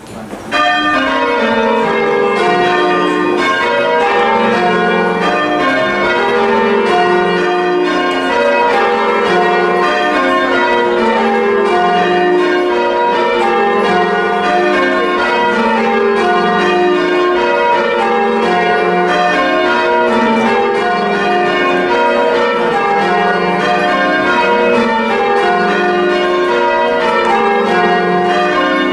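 Church tower bells rung full-circle in change ringing, a touch of plain hunt: an even, unbroken stream of bell strikes starting about half a second in, each row stepping down the scale.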